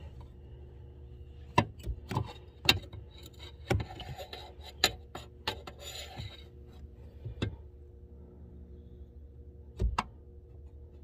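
Clicks and knocks of a 2006 Lincoln Town Car's upper steering shaft and its joint being pushed and twisted by hand against the steering column under the dash: a quick irregular run of them from about one and a half to seven and a half seconds in, then one more near the end.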